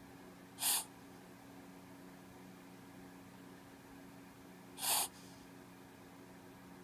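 Boston terrier giving two short, sharp snorts through her nose, about four seconds apart, with the sniffles of what the owner calls a slight reverse sneeze.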